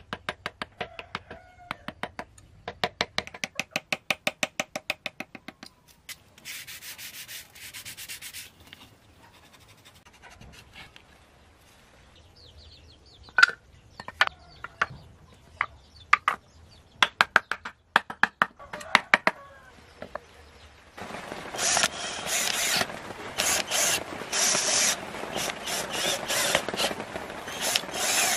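Hand woodworking on wood. First come quick, evenly spaced taps of a small carving chisel, about four a second. A short spell of rubbing follows, then scattered single knocks, and from about three quarters of the way through a longer, louder spell of rubbing and scraping on wood.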